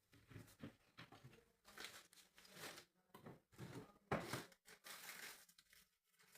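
Irregular rustling and crinkling handling noises, a series of short scrapes and rustles close by.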